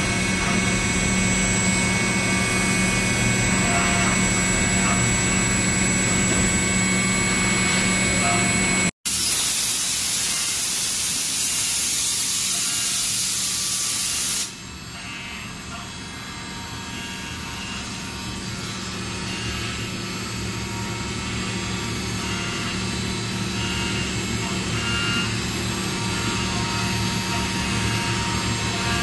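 CNC milling machine's spindle cutting a steel mould with coolant, a steady hum with fixed whining tones. After a break about nine seconds in, a compressed-air blow gun hisses loudly for about five seconds and stops abruptly, and then the machine runs on more quietly.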